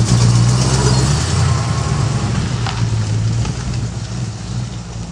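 The 5-litre fuel-injected Ford Mustang V8 in a 1954 Ford F100 pickup runs at low speed as the truck drives off. The engine note stays steady and grows gradually fainter.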